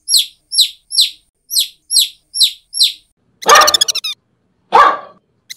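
A small bird chirping: a run of about eight short, high, falling chirps, evenly spaced, followed by two louder, rough, rasping animal calls a little past halfway.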